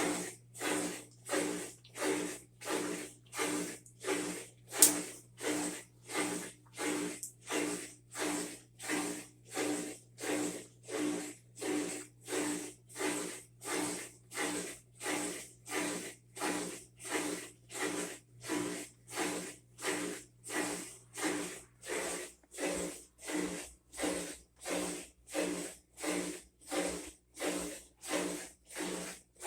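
Whirlpool top-load washer agitating, with an even swish of water and load about one and a half times a second. A steady low hum runs under it and stops about three quarters of the way through, and there is a single sharp click about five seconds in.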